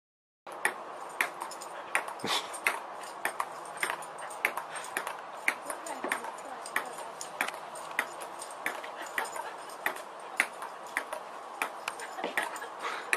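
Table-tennis ball clicking on the table and paddles in a rally, sharp clicks about two a second at an uneven pace over a steady hiss, starting about half a second in.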